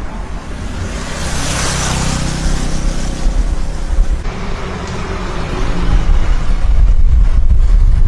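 A motor vehicle passes on the road, its tyre and engine noise swelling for a couple of seconds and then fading. After that, wind buffets the microphone with a heavy low rumble.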